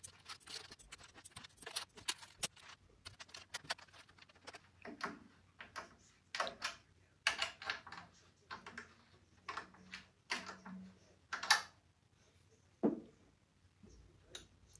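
Metal bass drum claw hooks and tension rods clinking and clicking as they are picked from a pile and fitted around the hoop: a quick, irregular string of light metallic clicks.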